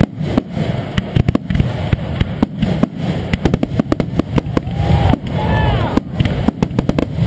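Fireworks display: aerial shells bursting in a rapid, continuous run of sharp bangs, several a second, over a low rumble. A few short tones rise and fall about five seconds in.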